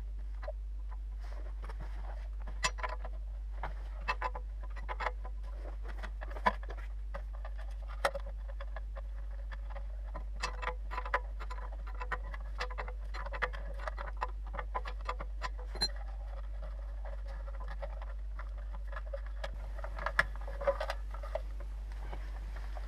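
Irregular clicks, light knocks and scrapes of a plastic water-pump pressure switch being twisted off its threaded fitting by hand and handled with its cable, over a steady low hum.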